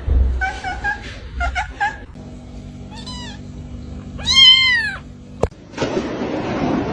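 A cat meows twice, a short meow about three seconds in and a longer, louder one a second later, each rising and then falling in pitch, over a steady low hum.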